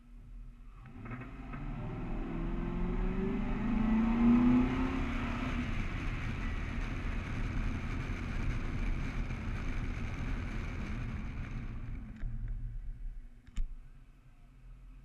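Car accelerating hard from a standstill, its engine rising in pitch, followed by steady wind and tyre noise at speed. The noise dies away about twelve seconds in as the car brakes to a stop, and a single sharp click follows.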